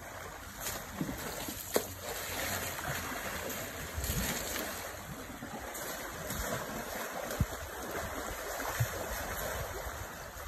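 Water sloshing and splashing as African elephants wade and bathe in a pool, a steady wash of water noise with a few sharp ticks. Wind buffets the microphone now and then.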